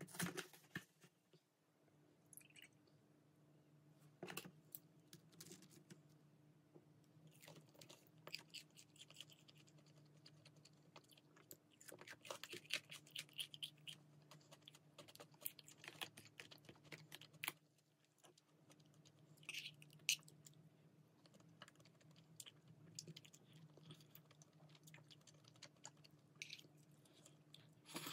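Faint clicks, taps and crinkles of tableware and food packaging being handled at a table: a paper drink carton, a glass, a bowl and chopsticks. A steady low hum sits under them.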